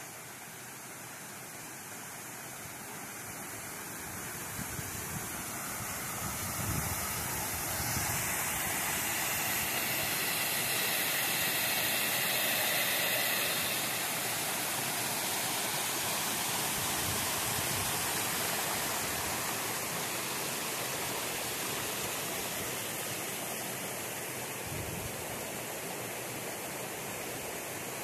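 Steady rushing water of a brook running full after heavy rain. It grows louder over the first dozen seconds, then eases a little.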